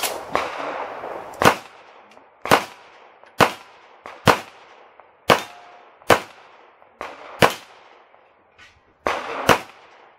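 A string of handgun shots, about ten, fired roughly one a second at an uneven pace. Each shot ends in a short echoing tail.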